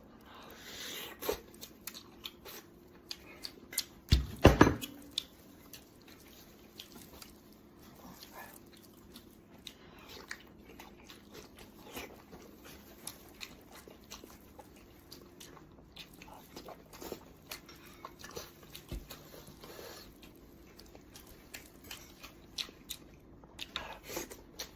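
A person chewing and biting roasted pork head up close, with many irregular wet clicks and smacks of the mouth. There is a louder knock about four seconds in.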